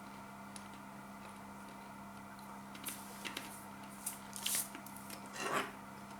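Crunching and chewing of Takis rolled tortilla chips in the mouth: a few irregular crisp cracks from about halfway in, the loudest near the end, over a steady low hum.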